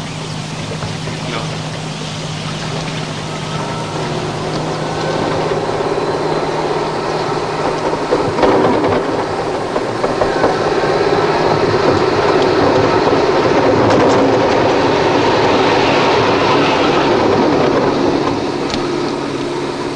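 A passing train, its noise building over several seconds, holding strong, then easing near the end, over a steady low hum.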